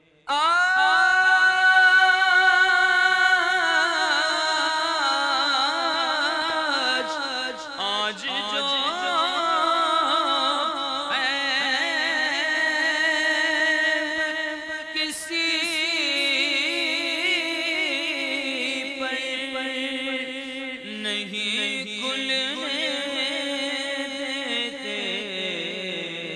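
A man's solo voice singing a naat into a microphone, in long held notes that waver and turn in ornamented runs. The voice comes in suddenly right at the start.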